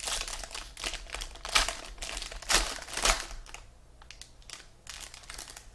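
Plastic wrapping crinkling and rustling as it is handled, with louder crackles about one and a half, two and a half and three seconds in, then quieter.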